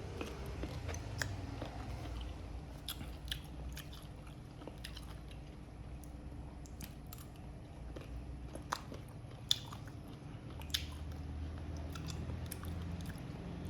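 A person biting and chewing crunchy bao mango, a small sour Thai mango, with a string of sharp crunches, several louder bites standing out.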